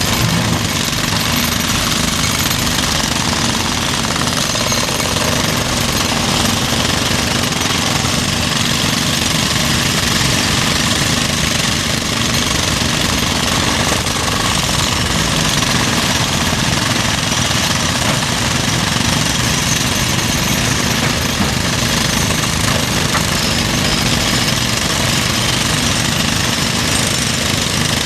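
Demolition breaker hammering rapidly and continuously at a constant pace.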